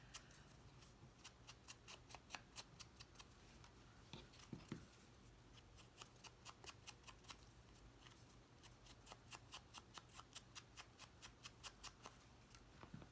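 Faint, quick taps of an ink dauber dabbing ink onto the edge of a paper piece, about four taps a second, in two runs with a short pause between them.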